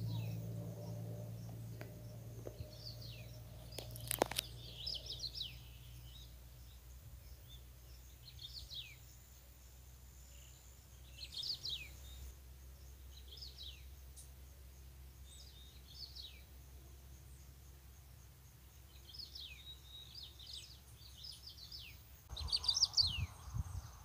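Small birds chirping again and again in short falling notes, over the low drone of distant highway traffic that fades away over the first several seconds. A burst of rustling and low rumble comes near the end.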